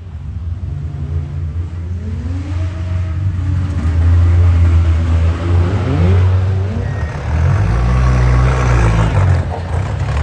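Demolition derby car's engine revving hard, heard from inside the car: the pitch climbs as it accelerates, twice.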